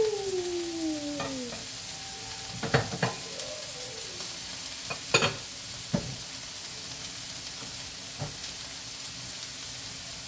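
Cubes of fatty meat sizzling in hot oil in a nonstick frying pan on a gas burner: a steady hiss of frying. A few sharp knocks come through it, the loudest about three and five seconds in.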